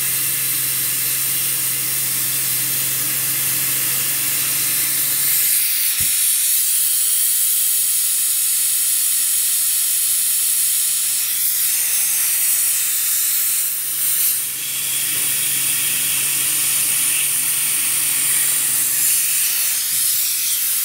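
Compressed air hissing steadily through a brass model twin-cylinder oscillating steam engine run on an air line for testing, with a low hum beneath it. A single sharp click about six seconds in.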